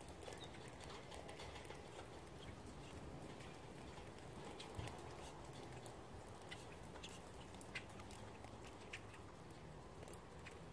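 Light rain: scattered single drops ticking irregularly over a faint steady hiss.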